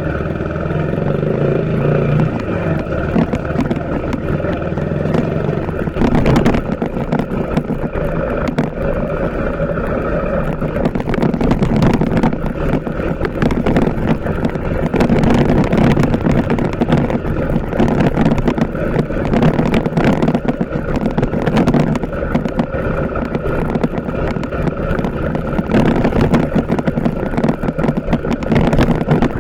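TVS Apache RTR 160 4V single-cylinder motorcycle engine running under way, with dense rough buffeting noise over it that grows heavier from about six seconds in.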